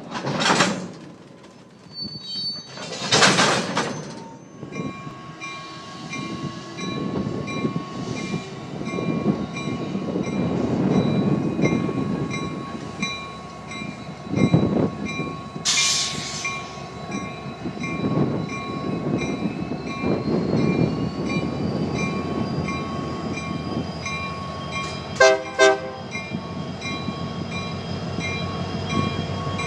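Union Pacific diesel switching locomotive running with its bell ringing steadily, and three sharp hisses of air. Near the end come two short horn blasts, the standard signal that the train is about to move.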